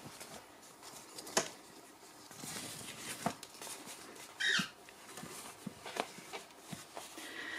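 Clothing being handled and laid out: soft fabric rustling with a few light taps, and a brief higher-pitched squeak about four and a half seconds in.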